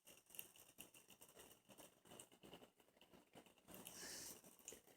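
Faint, irregular pattering and ticking of water droplets spattering from an ultrasonic mist maker churning the surface of a small bowl of water, with a brief soft hiss about four seconds in.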